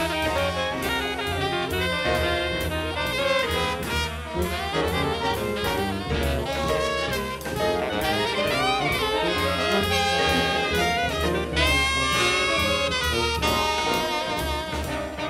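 Live jazz ensemble of saxophones, trumpet, trombone and tuba with piano, double bass and drums, playing an arrangement to a steady drum beat, with a trumpet playing over the band.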